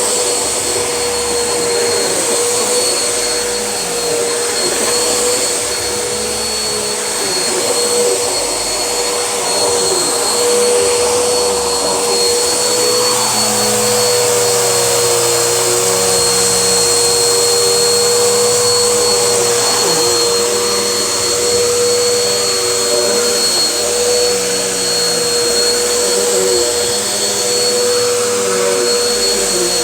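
Vacuum cleaner running continuously while vacuuming a floor: a steady motor whine with a faint high tone above it over a rushing hiss, wavering slightly in pitch now and then.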